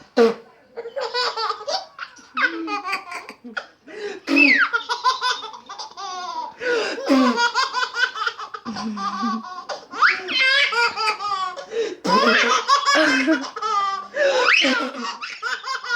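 A child laughing hard in a high voice, fit after fit of laughter with only short breaks for breath.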